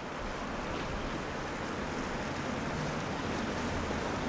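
Steady wind and sea noise on an open coast, a constant rushing that slowly swells.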